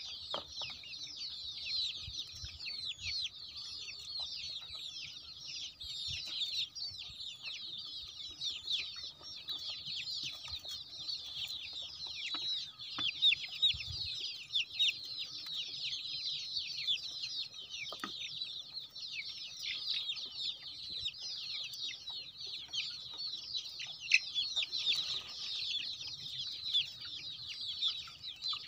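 A large flock of young country chicks peeping nonstop, many short, high, falling cheeps overlapping into a continuous chorus.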